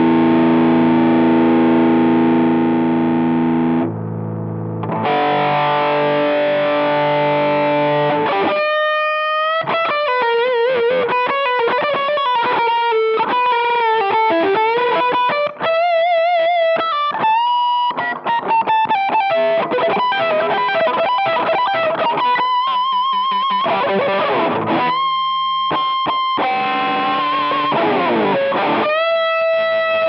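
Electric guitar played through a Behringer UM100 Ultra Metal distortion pedal, with a heavily distorted tone. For the first eight seconds or so it holds ringing chords. Then it plays a single-note lead with string bends, fast runs and vibrato, ending on a long held note.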